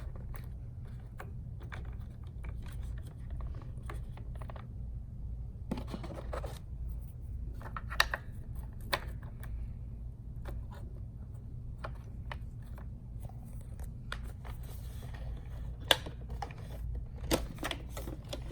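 Handling of a robot vacuum's small plastic parts, the side brushes being fitted: scattered clicks, taps and light scrapes, with a few sharper knocks, over a steady low hum.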